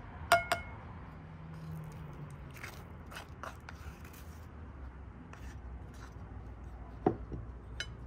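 Kitchen utensils clinking and knocking during food preparation: two sharp ringing clinks near the start, scattered light clicks, then a knock and a last click near the end.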